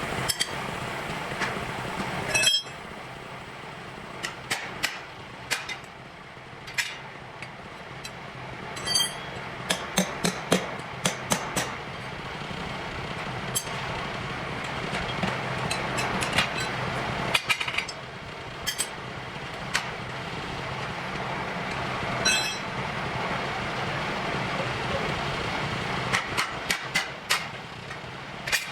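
Metal tools knocking and clinking against a forklift wheel during a tyre change: irregular sharp strikes, some in quick runs, with a cluster about ten seconds in and another near the end, over a steady machine drone.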